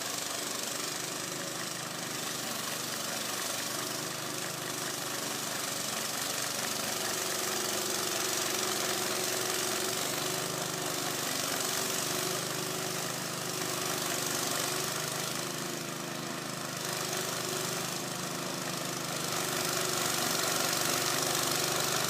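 Snow blower's small gas engine running steadily, with an even hiss over its hum.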